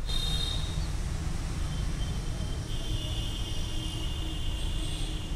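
Steady low background rumble, like a distant running engine or traffic, with a faint high steady whine that comes in for the second half. There are no clicks or knocks from the hand work.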